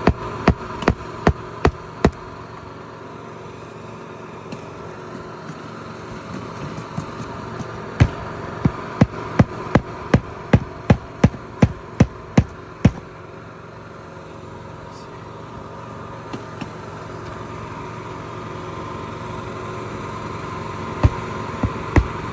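Hand hammer striking on an asphalt-shingle roof: a series of sharp strikes, about three a second, a handful at the start, a run of about a dozen in the middle and a few more near the end. A steady engine hum runs underneath.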